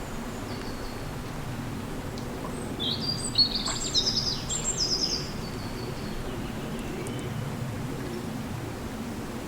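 Wind humming through a forest, a steady low rush, with birds singing: a burst of chirps and trills about three seconds in, lasting a couple of seconds.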